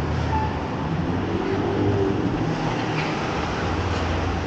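City street traffic noise: a steady low rumble of passing vehicles.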